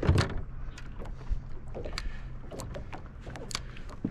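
Small waves lapping and slapping against the hull of a small boat, with scattered light ticks and a knock right at the start.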